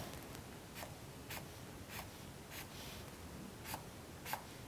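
Felt-tip marker drawing short strokes on paper: six or so faint, scratchy strokes, one every half second or so, with a short pause midway.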